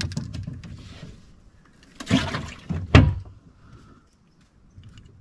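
Knocks and bumps of handling gear aboard a small boat, in a few short bursts; the loudest, a heavy thump, comes about three seconds in.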